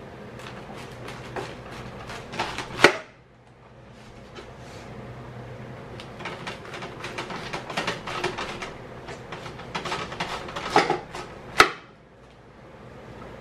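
A chef's knife cutting down through a whole head of green cabbage on a wooden cutting board: two runs of crunching as the blade works through the leaves, each ending in a sharp knock as it hits the board, the first about three seconds in and the second near the end.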